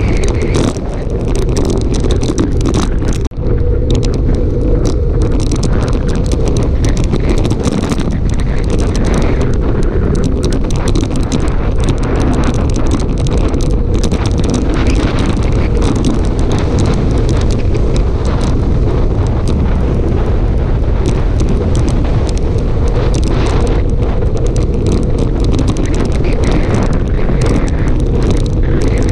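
Wind buffeting the microphone of a handlebar-mounted camera on a bicycle descending at speed: a loud, steady low rush with constant flutter, briefly dipping about three seconds in.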